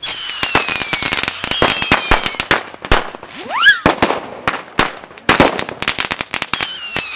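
Firecrackers going off on the ground: a dense run of sharp bangs and crackles, with whistling fireworks whose whistles fall in pitch over about a second each, at the start, about a second and a half in, and near the end. A short rising whistle comes midway.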